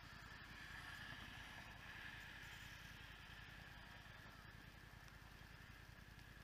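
Near silence: a faint steady hiss with a low rumble.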